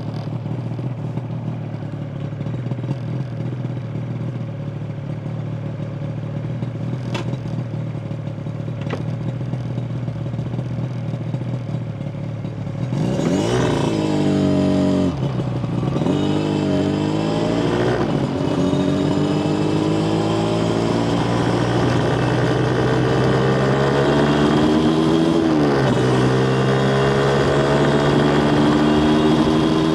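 Yamaha TZR250 1KT two-stroke parallel-twin engine running steadily at low revs. About halfway through it pulls hard: the revs climb, drop back sharply at each of several gear changes, and climb again in a long rise near the end.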